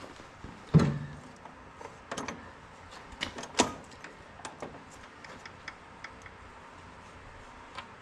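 Scattered metallic knocks and clicks of bolts, nuts and hand tools being handled while the housing is bolted back onto a John Deere TRS 24 snowblower. One loud knock comes about a second in, then lighter clicks that thin out to occasional ticks.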